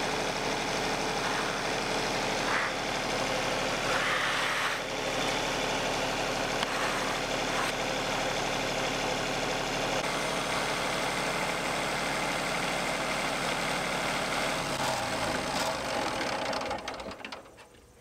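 Engine of a Wood-Mizer portable band sawmill running steadily, then winding down with falling pitch and dying away near the end.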